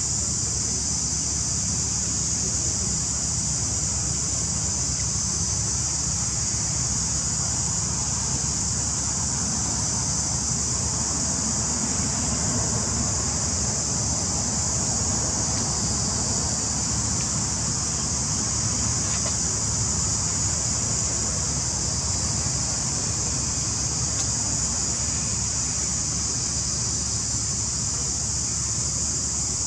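Steady background noise: a constant high hiss over a low rumble, unchanging throughout, with no distinct events.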